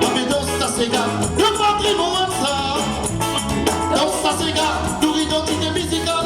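A live band and singer performing an upbeat dance song, with a steady beat and a sung melody throughout.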